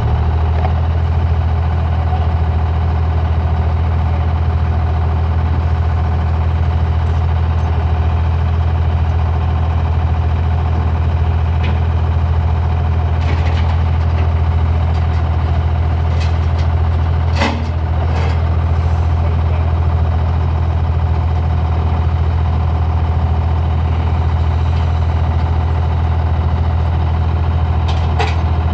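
Heavy diesel engine running at a steady speed, with a few sharp metallic clacks over it, the loudest about two-thirds of the way through.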